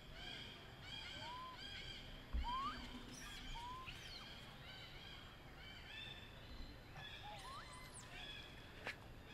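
A chorus of small animal calls: many short chirps repeated in quick runs, with a few short rising whistled notes scattered among them.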